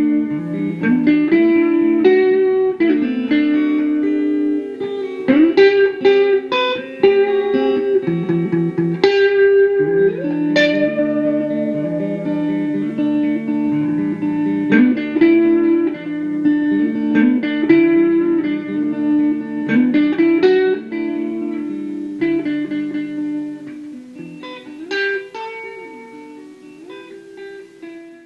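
Background music led by guitar, with plucked notes over a steady lower line, fading out over the last few seconds.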